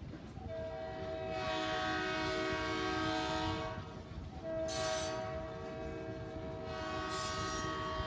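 Ellis & Eastern freight locomotive's air horn sounding several notes at once in two long blasts, the second starting about four and a half seconds in, over the low rumble of loaded gravel hopper cars rolling past.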